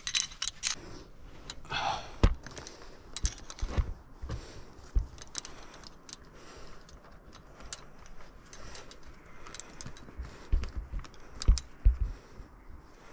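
Metal climbing gear, carabiners and hardware on a climber's harness, clinking and jangling as the climber moves, in scattered sharp clicks with a few dull knocks among them.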